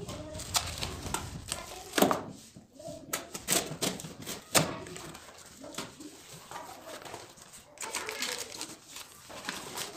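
A small blade slitting packing tape and cardboard on a delivery box, with irregular scraping, tearing and crinkling of the plastic wrap. Two sharp snaps stand out, about two seconds in and about halfway through.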